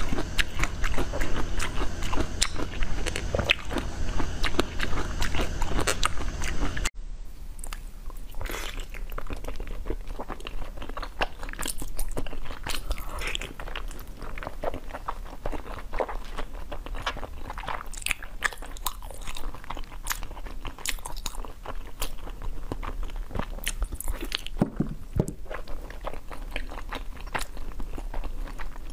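Close-miked eating: bites, slurps and chewing of a jelly cylinder packed with small colourful pieces. About seven seconds in it cuts to quieter, crisp crunching and chewing of a pink frozen treat, with sharp scattered clicks.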